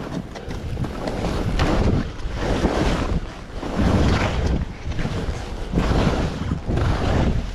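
Wind buffeting the microphone of a skier's camera during a run: a heavy low rumble that surges and eases about once a second.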